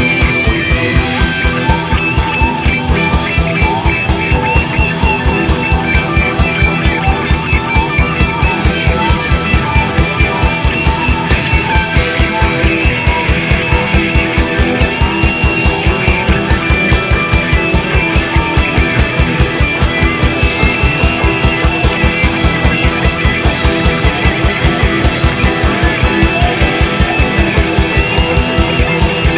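Psychedelic rock recording: drum kit and guitar over a fast, steady beat.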